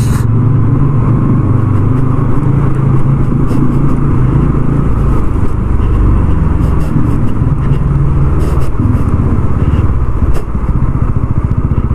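TVS Ronin 225 motorcycle's single-cylinder engine running steadily under way, with road and wind noise.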